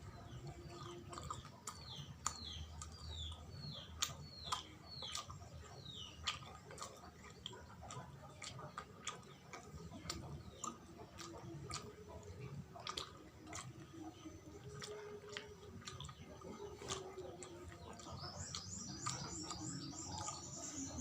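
Close-miked chewing of sawella, a sticky glutinous-rice, coconut and palm-sugar sweet, with many sharp wet mouth clicks. A bird chirps in the background, a run of quick falling chirps in the first few seconds, and a high rapid trill near the end.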